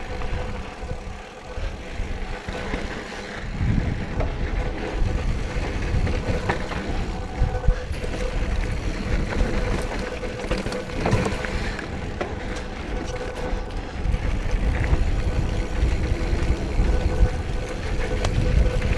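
Mountain bike riding a dirt trail: wind rumbling on the microphone, tyres crunching over dirt and the bike rattling with scattered knocks, under a steady thin whine.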